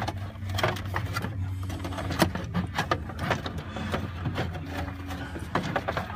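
Small plastic clicks and knocks of a device's cover and parts being handled and fitted back together, irregular throughout, over a steady low hum.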